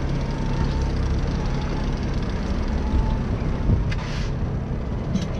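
Sport-fishing boat's engine running steadily under a wash of rushing water from the wake, with a couple of knocks and a brief hiss about four seconds in.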